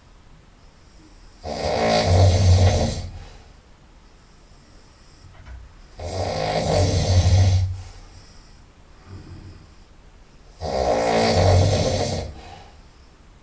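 A person's very loud nasal snoring: three long snores about four and a half seconds apart, each lasting one and a half to two seconds.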